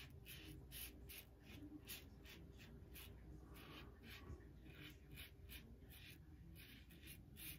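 Faint, quick scratching of a vintage English-made Gillette Rocket HD safety razor cutting stubble through shaving lather, short strokes a few times a second.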